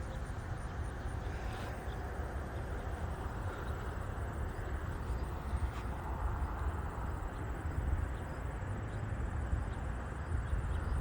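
Outdoor background: a steady low wind rumble on the microphone with a faint wash of distant road traffic.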